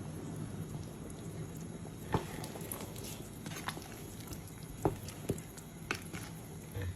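Low steady background hum with about five light, sharp knocks or clicks spread out at irregular moments, typical of utensils and pots being handled in a kitchen.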